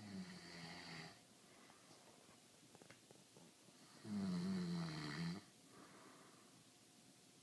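A sleeping man snoring: a short snore at the start, then a louder, longer one about four seconds in, each on a low pitch that sags slightly.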